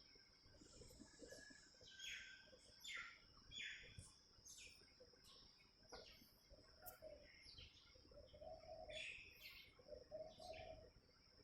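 Faint bird calls: scattered quick high chirps throughout, joined from about halfway by a low call repeated every second or two.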